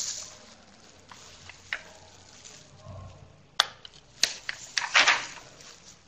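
Faint rustling with a few sharp clicks, the loudest about three and a half and four seconds in.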